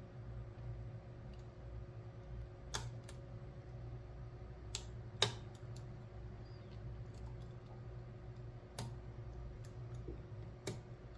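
Lock picks clicking and tapping inside a five-pin pin-tumbler challenge lock as it is picked: scattered small clicks, a few of them sharper, over a steady low hum.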